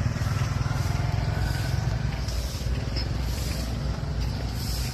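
A motor vehicle running steadily on the road: a low, even engine and road rumble.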